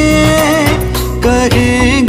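A Hindi film-style song playing, its melody moving over steady bass accompaniment.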